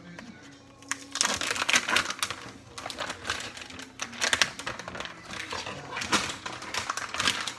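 Bacon packaging crinkling and crackling as it is pulled and worked open by hand, a dense irregular run of crackles from about a second in.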